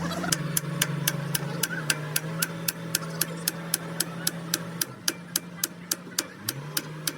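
A machine running with a steady hum and a sharp tick repeating about four times a second.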